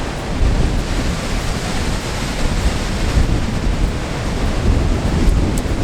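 Waterfall at Dangar Falls, a steady rush of falling water, with wind buffeting the microphone in uneven low gusts.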